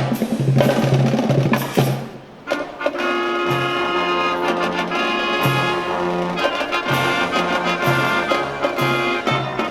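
Marching band brass section playing with drums. The music breaks off briefly about two seconds in, then comes back in with held brass chords over a pulsing bass line.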